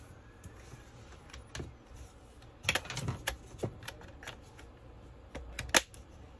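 Irregular clicks and taps of fingers handling and pressing on a plastic laptop casing, with one sharper click near the end.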